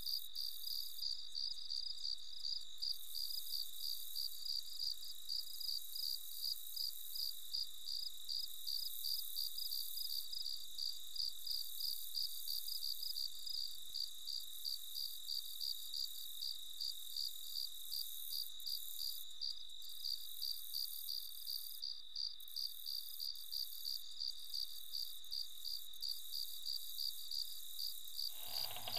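Crickets chirping in a steady, even rhythm, a few chirps a second, as night ambience. Just before the end a broader sound comes in over them.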